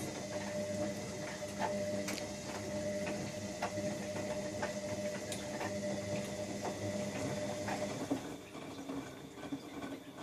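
Siemens Siwamat XLS 1240 washing machine running, its drum motor giving a steady hum with irregular clicks; about eight seconds in the motor tone drops away and the sound changes.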